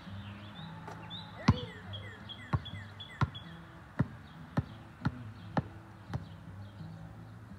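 Basketball being dribbled on an asphalt court, a run of about seven sharp bounces roughly two a second. One louder impact about a second and a half in, as the shot comes down. Birds chirp in the background.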